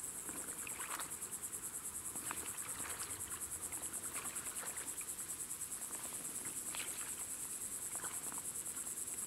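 Insects chirping in a steady, high-pitched chorus of rapid, even pulses, with faint scattered splashes of a person wading through shallow swamp water in waders.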